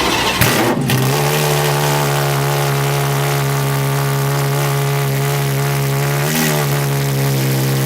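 Ferrari FXX's V12 engine catching about half a second in and settling into a steady idle, with one short blip of the throttle about six seconds in.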